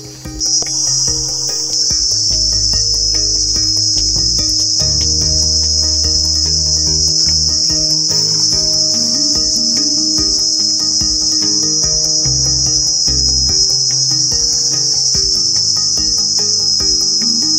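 A steady, high-pitched shrill chorus of forest insects, starting about half a second in and holding without a break. Quieter low notes, like soft background music, run underneath.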